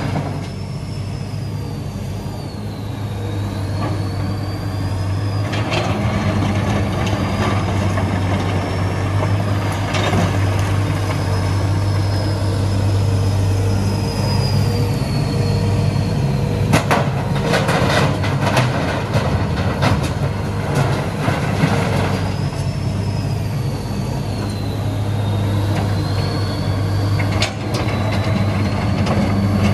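Hitachi EX200 hydraulic excavator's diesel engine running steadily under working load, with a high hydraulic whine that rises and falls as the boom and bucket move. Rocks clatter in several clusters, loudest around the middle.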